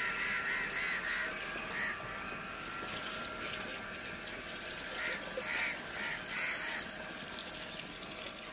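Short repeated bird calls: a quick run of about five near the start, then a few more scattered midway, over a faint steady hum.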